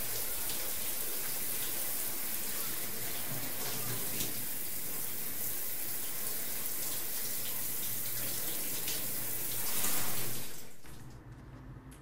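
Shower water spraying steadily, swelling briefly and then fading out near the end.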